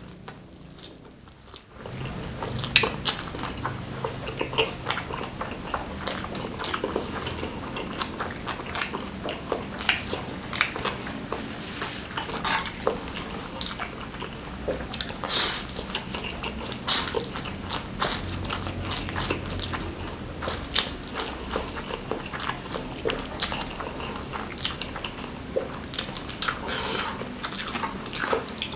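Close-miked eating: a person bites, chews and smacks on food in a dense run of sharp wet clicks, starting about two seconds in.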